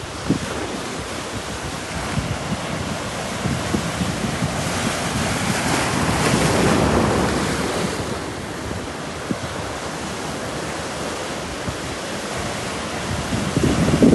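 Ocean surf washing on a beach, with wind buffeting the microphone; a wave builds and breaks about halfway through.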